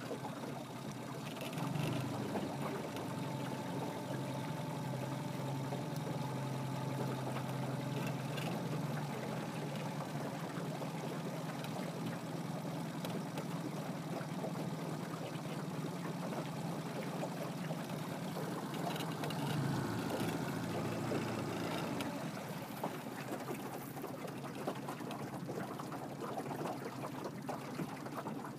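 A small boat's motor runs steadily at low speed from about two seconds in and stops a little after twenty seconds in. Water then trickles and laps against the hull.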